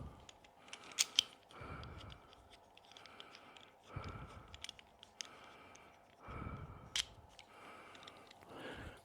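Foam being handled and wrapped around e-bike handlebars: soft rustling with a few small sharp clicks, the clearest about a second in and again near seven seconds.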